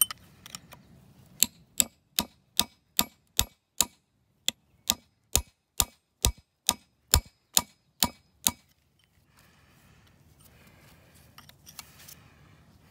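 Steady metal-on-metal tapping on a punch driven into the steel edge of an old Kubota front axle knuckle seal, about two and a half taps a second for some seven seconds, collapsing the seal so it can be peeled out. The tapping stops, followed by faint scraping.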